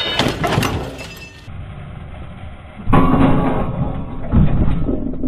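Gen 3 Toyota 4Runner dropped onto a boulder, its steel rock slider slamming into the rock with a heavy crash and the truck's body rattling afterwards. A second crash with clattering and knocks comes about three seconds in.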